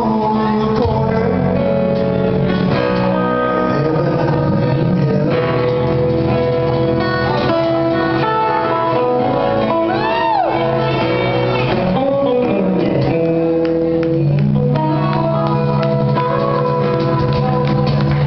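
Live band playing loud country-rock: a singer over strummed acoustic guitar, electric bass and hand percussion, with a sliding vocal or guitar phrase about ten seconds in.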